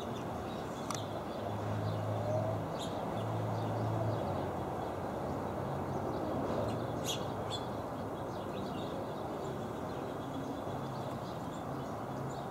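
A few short, high chirps from house finches, the clearest about a second in, around three seconds and around seven seconds, with fainter ones between. They sit over a steady low rumble of background noise.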